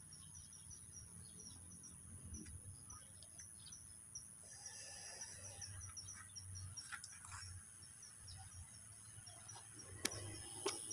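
Faint insect ambience: a steady high-pitched insect drone with a rapid run of short repeating chirps over it. A single sharp click sounds near the end.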